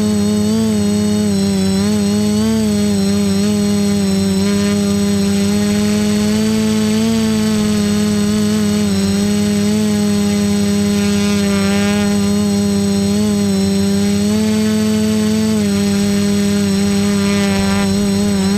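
Quadcopter motors and propellers buzzing in flight, heard from close by, with a steady pitch that wavers up and down as the throttle changes.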